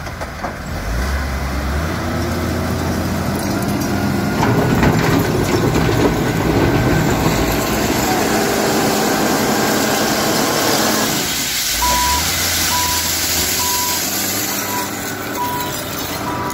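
Lovol FL936H wheel loader's Weichai diesel engine revving up under working load for several seconds, then dropping back. In the last few seconds the reversing alarm beeps steadily, a little more than once a second.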